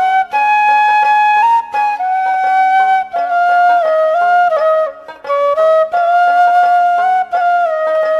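Background music: a melody of held notes stepping up and down, broken by short pauses, over a steady low drone.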